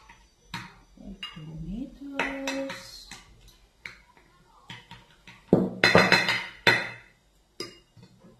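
A spoon scraping and knocking against a ceramic ramekin and a glass baking dish as tomato sauce is spooned out, in a string of clinks with a louder cluster of knocks a little past halfway.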